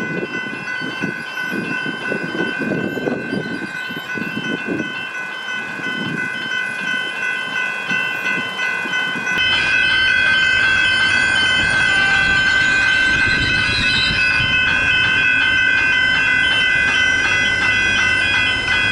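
Railway level crossing bells ringing steadily over the rumble of a train running through the crossing. About nine seconds in there is a cut to a louder take, with the bells still ringing and the train sound fuller.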